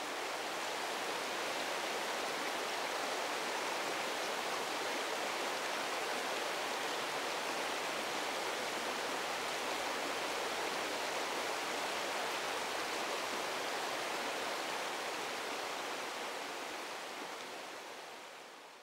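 Steady rushing water, fading out near the end.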